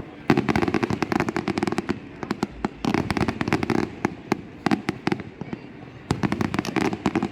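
Fireworks going off in rapid volleys of sharp pops and crackles, in clusters lasting a second or two with quieter gaps between.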